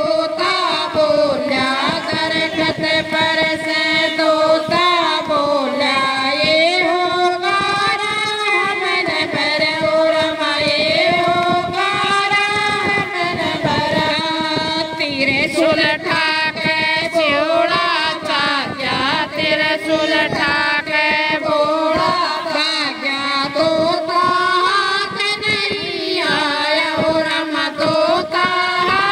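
Group of women singing a Hindi devotional song (bhajan), one voice leading through a microphone while the others sing along, with hand claps keeping time.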